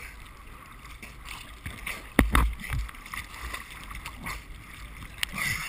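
Rough sea water sloshing and splashing against a camera at the surface, with a heavy slap of water about two seconds in and smaller slaps after.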